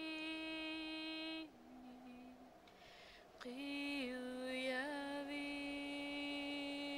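Slow wordless solo female singing or humming, long held notes that step down in pitch. It fades briefly about halfway, then glides up into another long held note.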